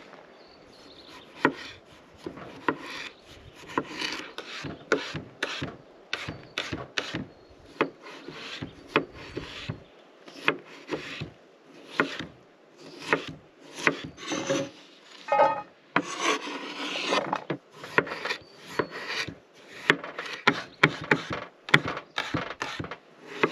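Chef's knife chopping potatoes on a wooden cutting board: an uneven run of knocks, about one or two a second, with a longer rasping scrape about two-thirds of the way through.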